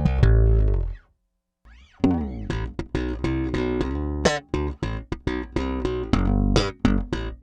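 Peavey T-40 electric bass played slap style. A held note is cut off about a second in, then after a short gap comes a bent note and a quick run of slapped and popped notes with sharp percussive attacks.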